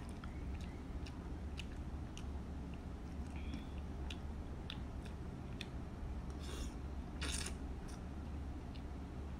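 Close-miked eating of curry instant noodles: wet chewing with many small mouth and utensil clicks. About two-thirds of the way through, noodles are slurped up in two short sucks.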